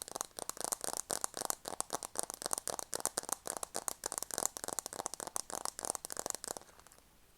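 Rapid, dense tapping, many small taps a second, that stops abruptly about six and a half seconds in.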